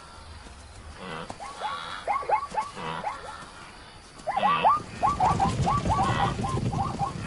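Plains zebras giving rapid barking alarm calls, short yelping barks in two quick runs, the second louder and denser. A low rumble of hooves sits beneath the second run.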